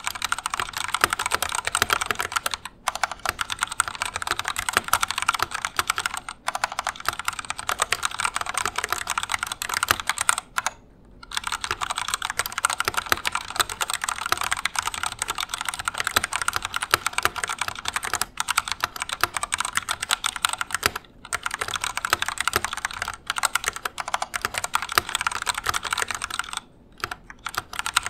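Fast continuous typing on an Epomaker EP84 mechanical keyboard with Gateron Black switches and stock, unmodified stabilizers, a dense stream of key clacks with a few short pauses.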